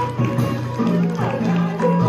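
Traditional Vietnamese music of a water puppet theatre orchestra: several sustained instrument tones with light percussion strokes.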